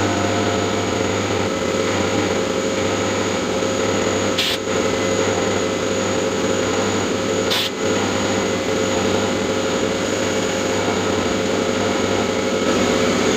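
CNC milling machine running steadily, spindle whine mixed with cutting noise, with two brief sharp sounds about three seconds apart.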